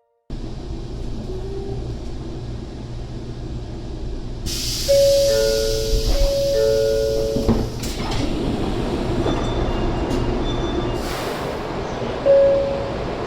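A standing N700 series Shinkansen train's passenger door in operation over a steady low rumble. A hiss starts, the two-tone door chime (high note, then low) sounds twice, and a single knock follows a little past halfway as the door reaches its stop. A single chime note sounds again near the end.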